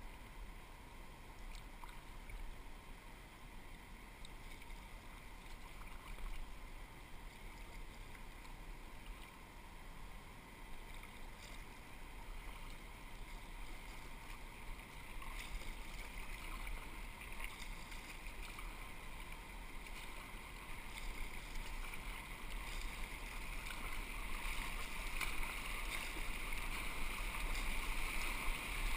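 Rushing water of a river's whitewater rapids, getting steadily louder toward the end as the kayak nears them, with small splashes of water against the kayak.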